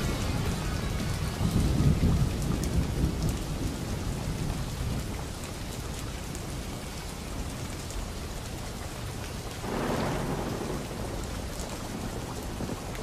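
Steady rain with low rumbles of thunder, a sound effect mixed into a heavy-metal album between songs; a rumble swells about ten seconds in.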